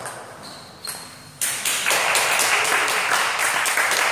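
Table tennis ball clicking off bat and table a few times, then a burst of rapid clapping from a small audience about a second and a half in, running on as the point ends.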